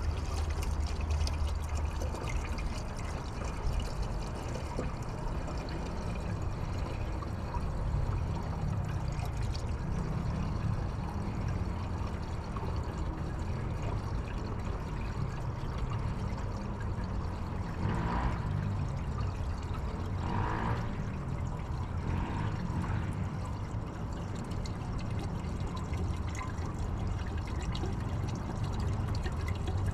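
Diesel fuel running steadily by gravity feed through an open inline valve into a mini skid steer's fuel tank.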